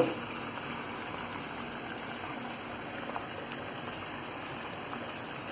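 Chicken drumsticks sizzling steadily in hot oil in a frying pan, with a few faint ticks; the sizzle drops away suddenly at the very end.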